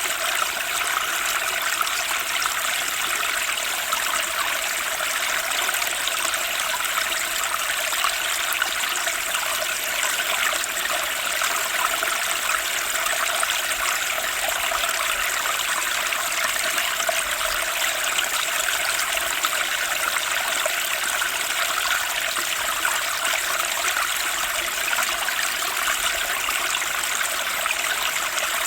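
Fast-flowing spring stream rushing and splashing over rocks in a steady, unbroken wash of water noise, brightest in the mid and high range.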